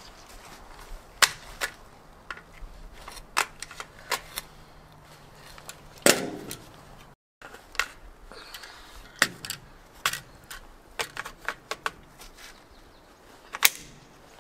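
Scattered gunshots on an outdoor shooting range: irregular sharp cracks, a few louder ones trailing a short echo, with no steady rhythm.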